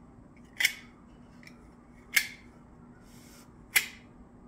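Knife blade slicing curled wood off the end of a wooden wedge driven into an axe eye: four short, sharp cuts about a second and a half apart.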